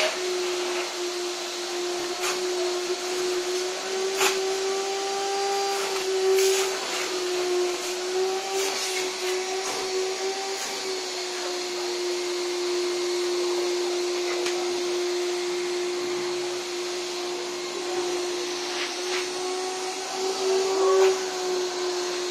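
Stainless-steel drum wet-and-dry canister vacuum running steadily, its hose nozzle worked over fabric sofa upholstery: a steady motor hum over rushing air, the pitch wavering slightly, with a few light knocks.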